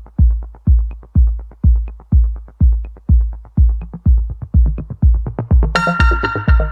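Electronic background music: a steady, heavy kick-drum beat about twice a second, joined by sustained synthesizer chords near the end.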